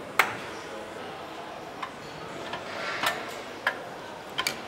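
A mallet strikes a part on an engine once, a sharp knock, followed by several lighter metal clicks and knocks as parts are fitted onto the engine, over steady workshop background noise.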